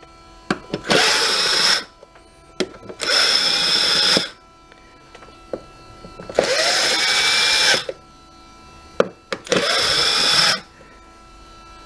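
Cordless drill-driver with a T25 Torx bit running in four short bursts of about a second or so each, each one starting with a rising whine as the motor spins up, undoing the screws of the air filter housing cover. A few sharp clicks come between the bursts as the bit is set onto each screw.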